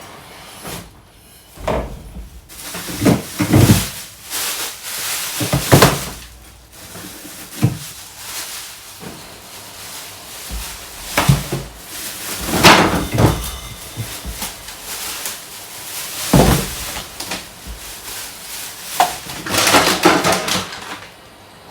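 Irregular knocks, bumps and clatter of containers, shelves and drawers being handled and taken out while a refrigerator is cleared out.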